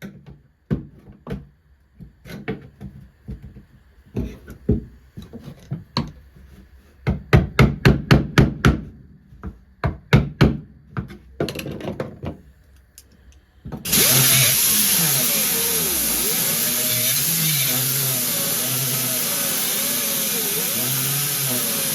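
A run of sharp metal knocks and taps, then about 14 seconds in a handheld power tool starts and runs loudly and steadily, its pitch wavering as the load changes while it cuts into the weld on the car's sheet-metal floor.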